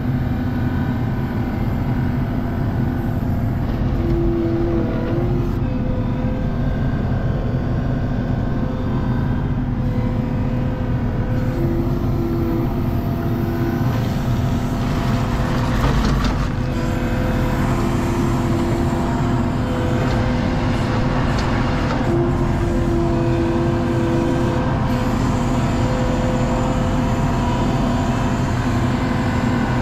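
Skid steer engine running steadily under load, with a higher whine that comes and goes about four times.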